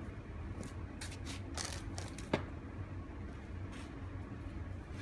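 A cardboard product box being handled: a few brief rustles and scrapes, with a sharp click about two seconds in, over a steady low hum.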